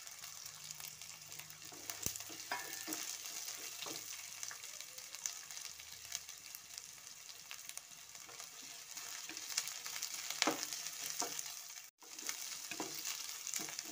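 Sliced onion, cabbage and carrot sizzling in hot oil in a kadhai, stirred with a wooden spatula that scrapes and knocks against the pan now and then. The sound cuts out for a moment near the end.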